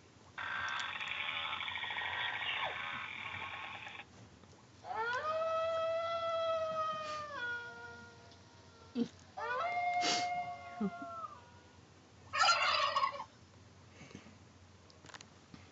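A series of separate animal calls with pauses between: first a buzzy, rasping call lasting a few seconds, then two drawn-out pitched calls that hold a note and drop at the end, then a short rasping burst.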